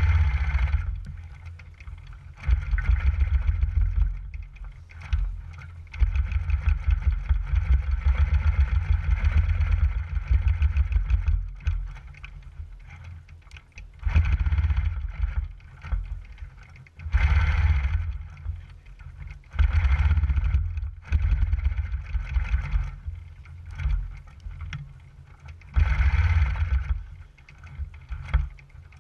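Longarm quilting machine stitching, its needle going up and down rapidly. It runs in stretches of a few seconds with quieter gaps between, as the machine slows or stops.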